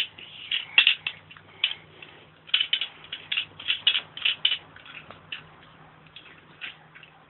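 Irregular light clicks and taps, a few a second, over a faint steady hum.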